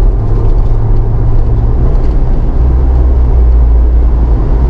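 Jeep Wrangler JL Rubicon driving at highway speed, heard from inside the cabin: a loud, steady low rumble of engine and road noise. Its deep drone shifts lower about halfway through.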